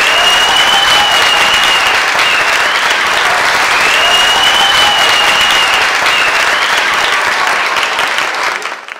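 Audience applauding, with two long high-pitched cheers held over the clapping; the applause fades out near the end.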